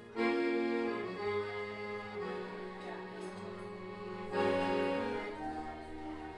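Gabbanelli piano accordion playing slow, sustained chords over a bass line that steps lower near the end. Strong chords are struck at the start and again about four seconds in.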